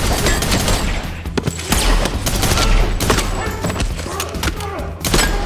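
Film gunfight: a sudden burst of rapid gunfire, many shots in quick succession for about three seconds, then thinning to scattered shots, with music underneath.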